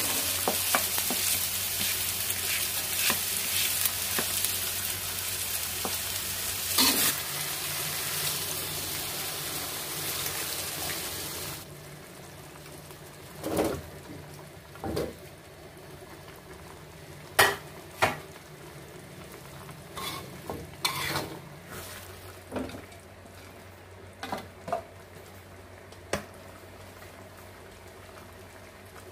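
Chilli spice paste sizzling in a hot metal wok while a metal spatula stirs and scrapes through it; the sizzle cuts off suddenly about halfway. After that, scattered clinks and scrapes of the spatula against the wok as boiled chicken feet are stirred into the paste.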